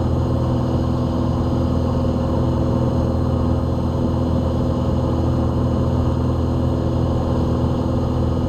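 Van's RV-7 light aircraft's piston engine and propeller droning steadily in flight, a constant hum of several even tones at climb power.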